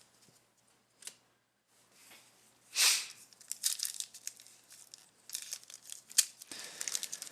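Trading card pack wrapper being torn open: one sharp rip just under three seconds in, then crinkling and rustling of the wrapper and cards.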